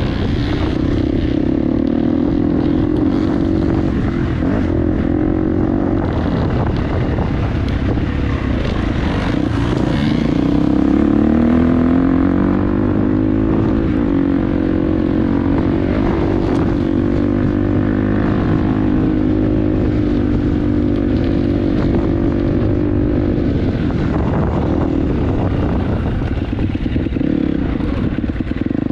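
Dirt bike engine running under load on a trail, its pitch rising and falling with the throttle. About ten seconds in it drops low, then climbs back up.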